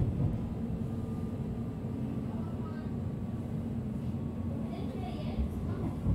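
Cabin sound inside a Berlin S-Bahn class 483/484 electric multiple unit: a steady low hum with faint steady tones above it. A short high-pitched hiss comes about five seconds in.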